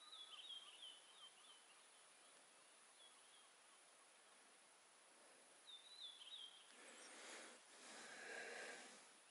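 Faint outdoor quiet in which a small songbird sings a short, high, descending phrase, three times a few seconds apart. Near the end a soft rushing noise lasts about two seconds.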